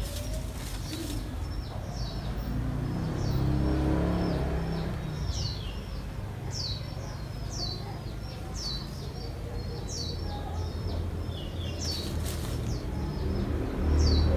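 Small birds chirping: a run of short, high notes, each dropping in pitch, about two a second, over a low steady rumble.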